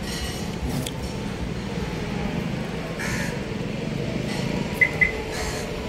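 Crows cawing a few times over a steady low rumble of highway traffic, with two short sharp high notes, the loudest sounds, about five seconds in.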